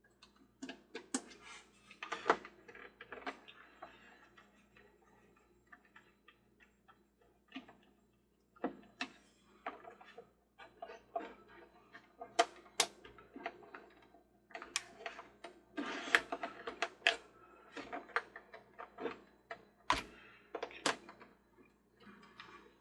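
Screwdriver turning tight screws out of the plastic base of a toy Ferris wheel, making irregular clicks, ticks and scraping knocks of metal on plastic, with short pauses between bursts.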